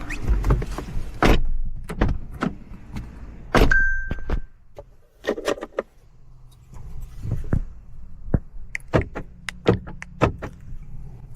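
Sharp clicks and knocks of hands working controls inside a car, with one short electronic beep from the car about four seconds in. A faint low hum runs under the second half.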